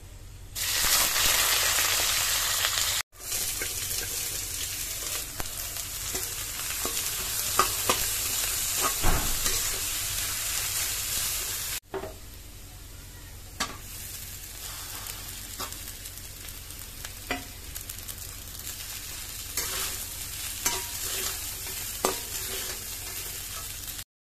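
Food frying and sizzling in hot oil in a metal wok while a metal spatula stirs and scrapes it, with sharp clinks as the spatula hits the pan. The sizzle is loudest in the first few seconds, and the sound breaks off abruptly twice.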